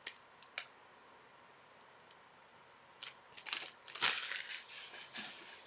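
Foil wrapper of a hockey card pack crinkling and being torn open, in a few rustling bursts from about three seconds in, loudest about four seconds in. Two light clicks come before it.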